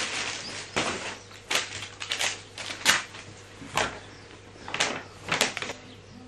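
Thin plastic shopping bag crinkling and rustling as clothes are pulled out of it and handled, in a string of short sharp crackles roughly once a second.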